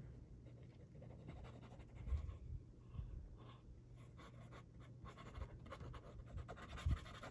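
Faint rustling, sliding and light taps of paper scraps being handled and pressed onto a handmade card, over a low steady hum.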